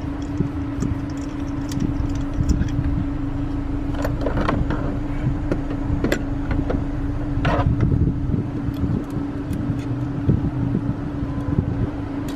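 Audi A4 B8 TSI engine idling with a misfire, which the mechanic traces to the number two cylinder. The injector on that cylinder is stuck open and fuel-fouling it. A few sharp clicks sound in the middle.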